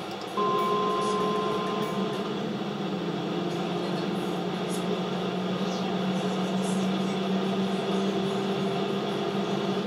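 Onboard engine and road noise of Renault Sport hatchbacks at speed on a race track, played back through computer speakers. It starts abruptly just after the beginning, when playback resumes, with a short high tone during the first second and a half, then runs at a steady pitch.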